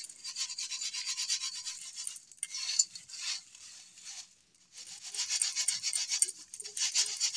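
Dry poha flakes rattling and rasping against a perforated stainless-steel plate as it is shaken quickly and steadily to sift out fine crumbs and dust. The shaking stops briefly about four seconds in, then picks up again.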